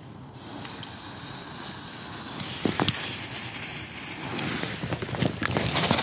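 Lit fuse of an Xplode Bees ground-lit flying firework burning with a hiss and scattered sharp crackles, growing louder from about halfway through. Near the end the firework's own spark charge catches with a louder hiss.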